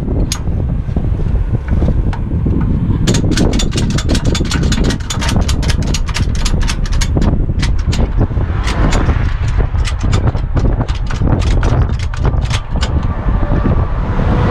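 Rapid, repeated metallic clicking of a ratchet being cranked to tighten a wheel strap over a truck tyre on a tow truck's wheel-lift. The clicks start about three seconds in and come quickly and evenly at first, then more unevenly, over a steady low rumble.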